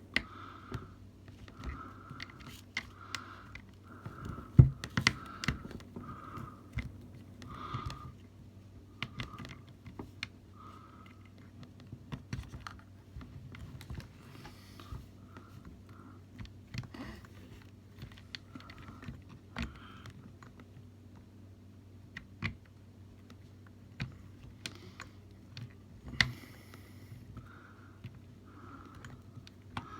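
Irregular small clicks, taps and rattles of hands working plastic and metal camera gear: a remote shutter release cable being fitted to a DSLR cage.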